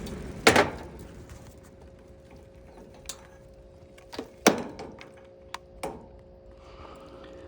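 Sharp mechanical clicks and knocks from handling equipment, about six spread out, the loudest about half a second in and again after four seconds, over a faint steady hum.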